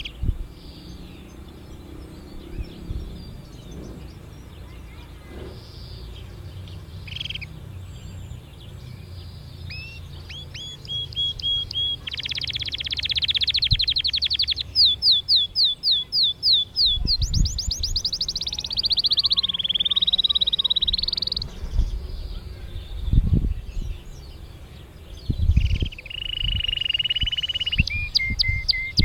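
Domestic canary singing, starting with a few scattered chirps and then breaking into full song about ten seconds in: runs of repeated notes, fast trills and long held whistles. A few dull low thumps come through in the second half.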